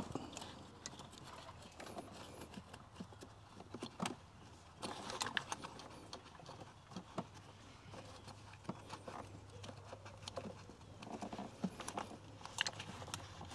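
Faint, scattered clicks, taps and rustling as a gloved hand works a wiring-harness connector onto a BMW S65 V8's ignition coil, with plastic clicking among the wiring.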